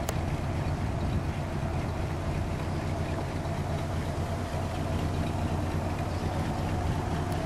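1968 Cadillac DeVille's 472 cubic-inch V8 running at low speed, a steady low hum, as the convertible rolls slowly away and turns.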